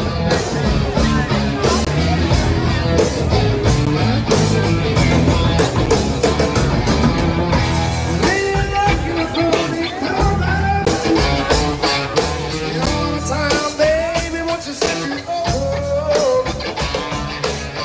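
Live rock band playing: electric guitar and drums with a singer.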